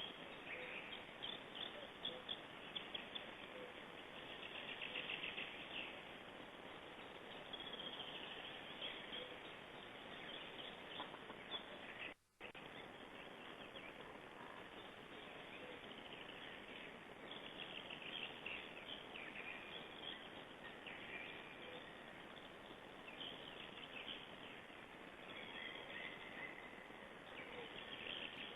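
Small birds chirping and singing over a steady background hiss; the sound drops out completely for a moment about twelve seconds in.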